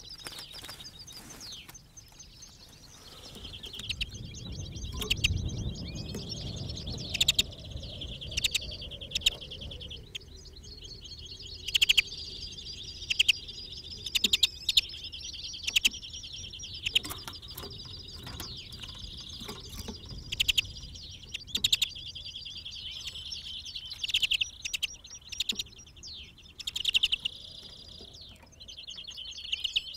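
Caged male European greenfinch, set out as a decoy call bird, singing: a steady run of twittering trills and sharp repeated notes. A low rumble sits underneath during the first third.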